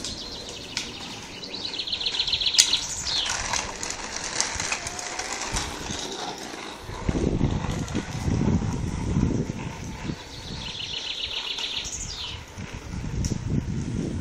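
A songbird singing two phrases about ten seconds apart, each a rapid high trill that ends in a quick downward slur. A low rumble on the microphone sets in about seven seconds in.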